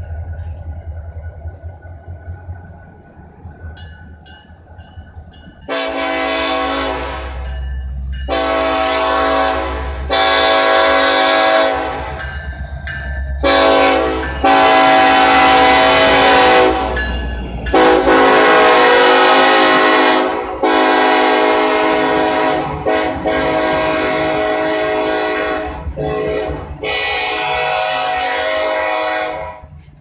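Diesel freight locomotive air horn sounding a long series of loud blasts, mostly held for two or more seconds with short gaps, each a chord of several notes, over the low rumble of the diesel engines. The horn starts about six seconds in, after a few seconds of engine rumble alone.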